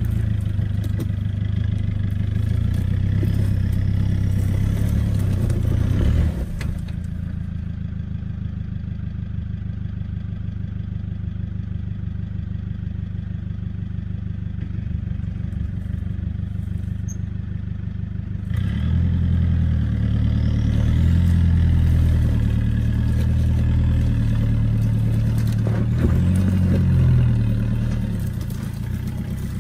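Toyota Hilux engine working under load on a steep, rutted off-road climb, its revs rising and falling. It settles to a lower, quieter drone about six seconds in, then revs up again about two-thirds of the way through, with a few knocks along the way.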